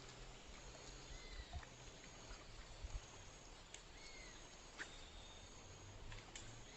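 Quiet outdoor ambience with a few short, arching chirps from a small animal, one about four seconds in, and a couple of faint clicks.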